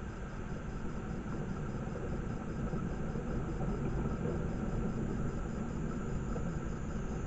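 Steady low rumble and hiss of forest ambience picked up by a trail camera's microphone, with a faint fast regular ticking high in pitch throughout.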